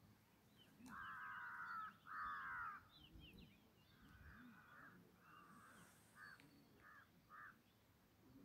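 Crow cawing: two long, harsh caws about a second in, then a string of shorter caws that grow shorter and fainter. Small birds chirp faintly in the background.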